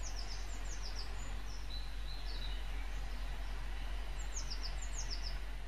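Small birds chirping in the background: runs of quick, high, downward-sliding chirps near the start and again near the end, over a steady low hum and hiss.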